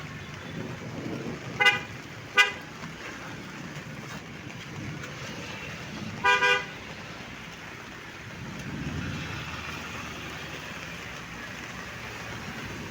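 Short, loud beeps: two single beeps under a second apart, then a quick double beep about four seconds later, over steady background noise.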